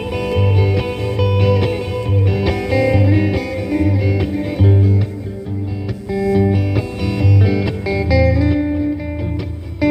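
Live instrumental guitar music: picked blues-rock guitar notes over a bass line that repeats evenly, with no singing.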